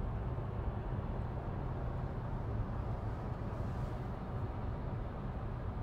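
Steady low rumble of a Skoda car driving on a wet road, heard from inside the cabin: engine and road drone with tyre hiss.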